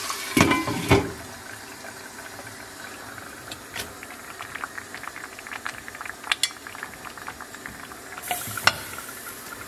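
A glass pot lid clinks down twice on a pan of frying onions, about half a second and a second in. Then a pot of white maize porridge for nsima bubbles under its glass lid, a soft hiss with scattered small pops and crackles and a sharper knock near the end.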